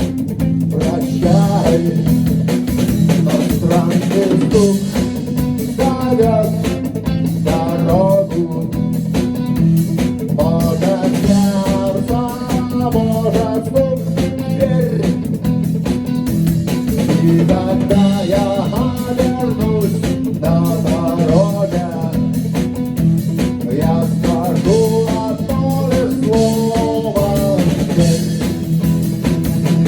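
Rock band playing live: guitars, bass and a drum kit keep a steady groove while a melodic lead line weaves over the top.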